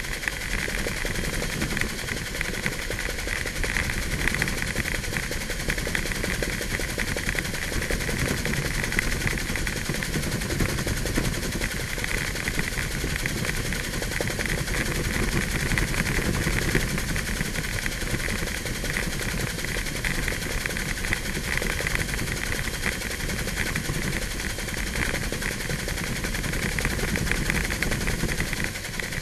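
Helicopter in flight heard from aboard: steady, loud rotor and engine noise.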